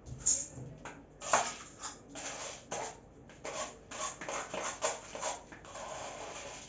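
Irregular scraping and rattling as washed green grams (ndengu) are put into an electric pressure cooker's pot, in short uneven bursts.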